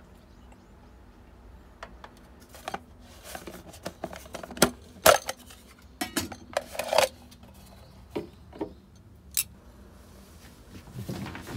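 Cooking gear and utensils being handled and set down: an uneven string of clicks, clinks and knocks, busiest and loudest from about four to seven seconds in.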